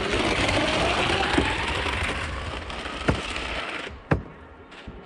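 Ski jumper's skis hissing down the wooden inrun track, a faint tone rising in pitch as they speed up. The hiss cuts off abruptly at the takeoff, with a sharp knock just before and a louder one just after.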